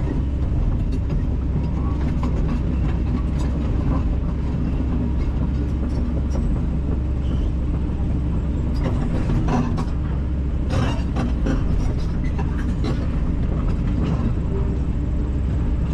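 Kobelco 210LC-9 excavator's diesel engine running steadily under load, with a few short clanks and knocks about nine to eleven seconds in.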